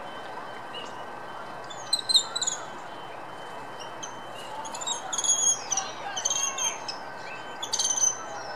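Spider monkey giving high-pitched squeaky calls that fall in pitch. A short burst comes about two seconds in, then longer twittering runs from about five seconds in and again near the end.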